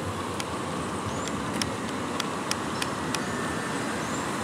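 Steady roadway traffic noise, with a few sharp clicks scattered through it and two short high chirps, one about a second in and one near the end.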